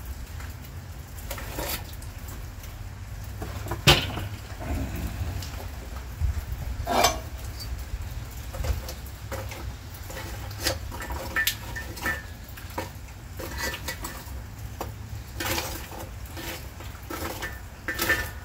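Metal clinks and knocks of a cast-iron camp Dutch oven and its lid being handled while the charcoal is checked. The sharpest knocks come about four seconds in and about seven seconds in, over steady heavy rain in the background.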